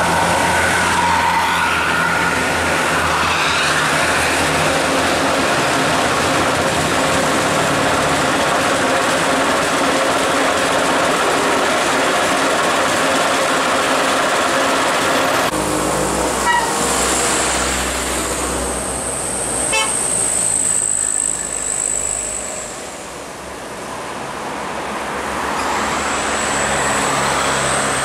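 Tour-bus musical air horns ('telolet') playing held, changing notes over bus engines and road traffic. About halfway through the sound changes suddenly to mainly low engine rumble with a thin, high, steady whine.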